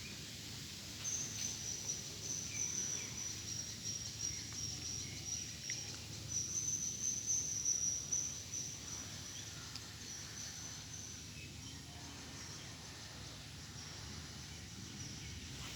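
Insect trilling at a high, steady pitch, starting about a second in and fading out around eleven seconds in, over a low background rumble.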